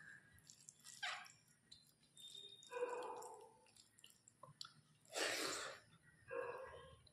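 Close-miked eating of rice and chicken curry: chewing and wet mouth sounds in short separate bursts, with a louder breathy noise about five seconds in.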